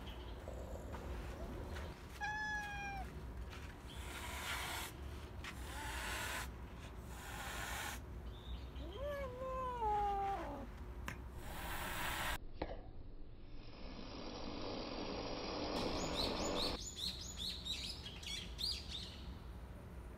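Black-and-white tuxedo cat meowing twice: a short meow about two seconds in, then a longer, louder meow about nine seconds in that rises and then falls in pitch. Bursts of rustling noise come between the meows.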